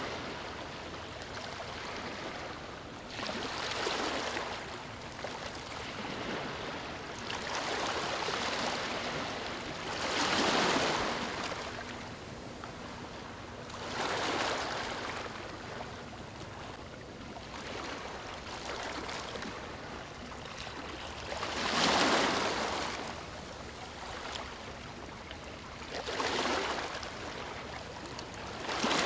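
Small waves breaking and washing up a sandy beach: a steady hiss of surf that swells every few seconds, with two larger breakers about a third of the way in and about three quarters of the way in.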